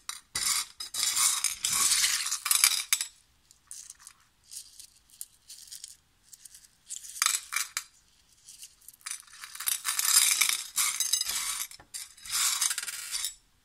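Rough and rubbed black and crystal opal pieces clinking and rattling against one another and a ceramic plate as they are scooped up by hand, poured and stirred, in several bursts of clatter with short pauses between.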